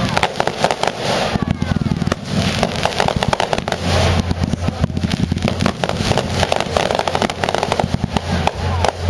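Fireworks going off in a rapid, continuous barrage: many bangs and crackles in quick succession, with a few faint whistling glides among them.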